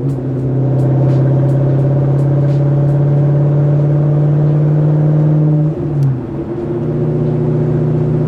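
C6 Corvette's V8, straight-piped with the mufflers deleted, heard from inside the cabin while cruising: a steady exhaust drone. It breaks briefly about six seconds in, then settles back into a steady drone.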